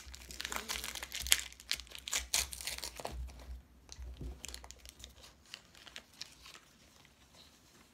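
Foil wrapper of a Match Attax football card pack being torn open and crinkled: a dense crackle for the first three or four seconds that then thins out and fades.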